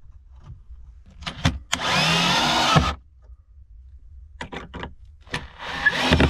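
Cordless drill-driver driving screws through a plank into a wooden door. There is a motor run of about a second, then a second run that starts near the end, and a few short clicks come before each run.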